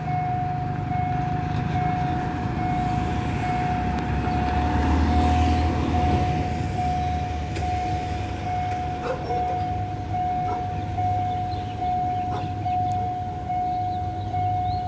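Railway level-crossing warning bell ringing as one pitched tone, pulsing evenly about twice a second, while the crossing barriers are lowered for an approaching train. Under it is the low rumble of road traffic, which swells about five seconds in as a vehicle passes.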